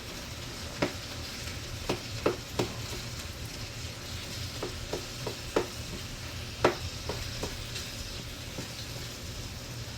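Vegetables sizzling in a frying pan while being stirred, with a utensil knocking against the pan about a dozen times at irregular intervals.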